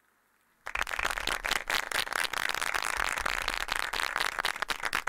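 Audience applauding: many people clapping, a dense patter of claps that starts suddenly about a second in.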